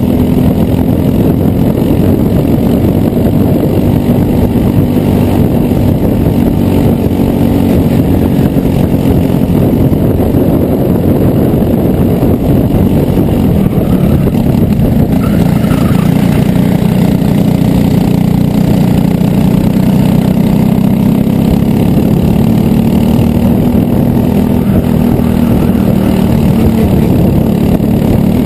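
Racing kart engine running hard under load, heard loud and close from on board, its note sagging and climbing as the kart works through the corners.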